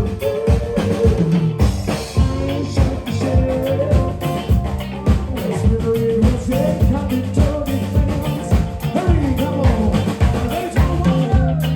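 Live band playing a song, with a drum kit keeping a steady beat under a moving bass line.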